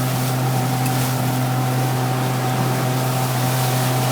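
Motorboat engine running steadily underway: a constant, even drone with the rush of water and wind over it.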